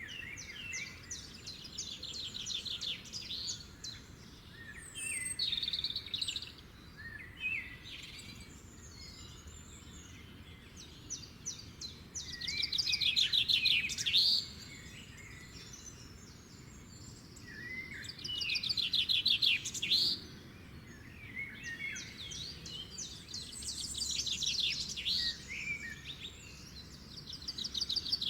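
Songbirds singing, with short, fast-trilled high song phrases of a second or two repeating and overlapping. The two loudest phrases come about halfway through and again about two-thirds of the way through, over a faint steady background hiss.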